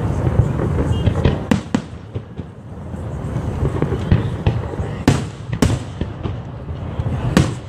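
Aerial firework shells bursting in a rapid series of sharp bangs over a continuous low rumble of further explosions.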